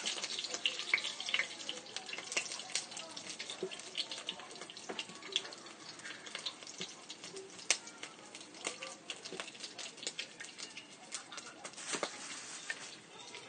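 Food frying in hot oil in the non-stick pot of an electric multi-cooker, with a dense, irregular crackling and popping.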